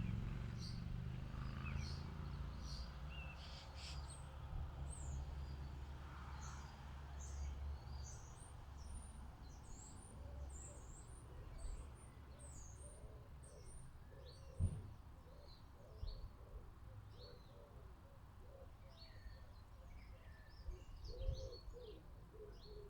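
Small garden birds chirping and twittering with many short, high calls, while a lower, repeated cooing call joins in during the second half. Two short soft knocks stand out, one a little after the middle and one near the end.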